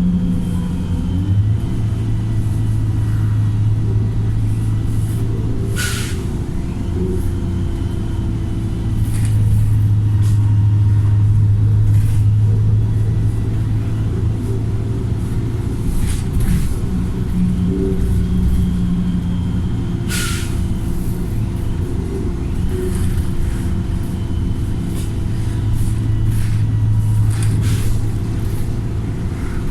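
Wright StreetLite single-deck bus's diesel engine, heard on board, pulling hard and easing off in turns. The engine is remapped, so it thrashes under load. A few brief sharp noises cut through it.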